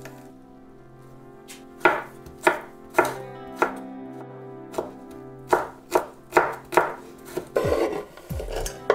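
Kitchen knife chopping garlic cloves on a bamboo cutting board: about ten sharp chops at an uneven pace. Near the end the blade scrapes the chopped garlic across the board.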